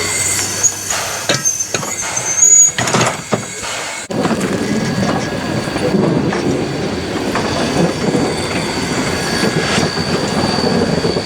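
Steam train hauled by locomotive A428 on the track: a few sharp knocks and clanks, then after an abrupt change about four seconds in, a steady rumble and rattle of the train rolling along the rails.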